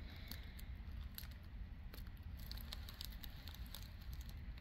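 Faint rustling and scattered light ticks of a diamond painting canvas being handled, over a low steady hum.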